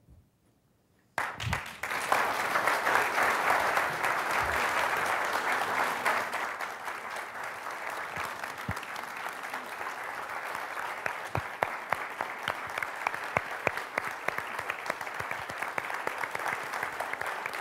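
Audience applause breaking out suddenly about a second in, fullest for the first few seconds, then settling into steady clapping with single claps standing out.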